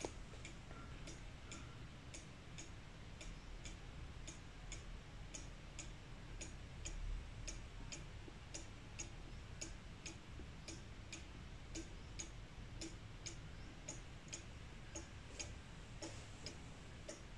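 Mechanical eight-day, three-weight Black Forest cuckoo clock ticking steadily and faintly, about two ticks a second.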